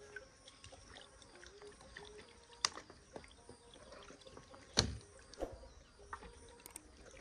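Quiet handling sounds: raw chicken pieces worked by hand in a metal pot, with a few small clicks, a sharp click a little over two seconds in, and a louder thump about five seconds in as a plastic water bottle is set down.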